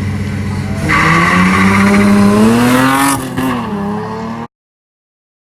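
A car engine running, then accelerating hard about a second in, its pitch climbing for about two seconds before falling away. The sound cuts off abruptly to silence near the end.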